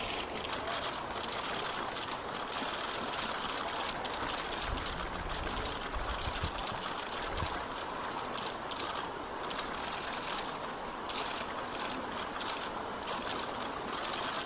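Muddy river water rushing steadily past, an even wash of flowing-water noise.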